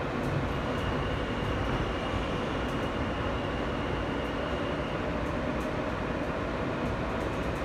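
Inside a moving R160B subway car: the steady rumble of wheels on rail, with a faint high steady tone over it for the first few seconds and a few light clicks.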